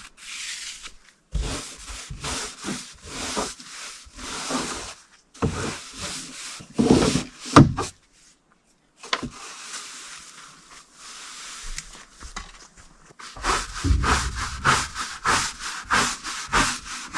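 A paintbrush stroking wood preservative onto rough salvaged deck boards, in a series of short rasping strokes. There is a brief gap about halfway, and the strokes come quicker and closer together near the end.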